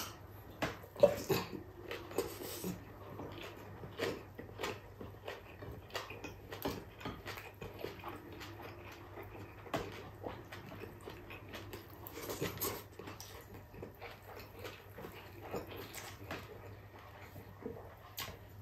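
Close-up mouth sounds of a man eating rice and beef with his hands: irregular chewing, lip-smacking and soft clicks, the sharpest about a second in.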